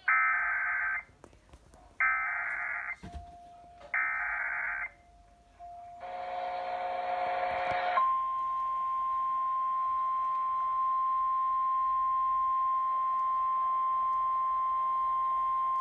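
Emergency Alert System activation: three screeching SAME data-header bursts, about a second each and two seconds apart, then a harsher buzz for about two seconds, then a steady single-pitch alert tone just above 1 kHz held for about nine seconds. This is the attention signal ahead of a severe thunderstorm warning.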